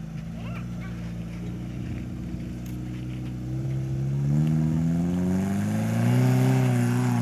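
Off-road 4x4's engine pulling under load. It runs steadily at first, then revs up in two rising surges about four and six seconds in, louder each time, and eases off near the end.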